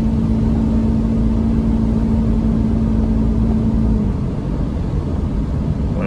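1997 Camaro's 3.8-litre V6 running smoothly above 2,000 rpm, heard from inside the cabin under way with road noise; its misfire does not show at these revs. A steady drone falls slightly and drops away about four seconds in, and the overall sound gets a little quieter.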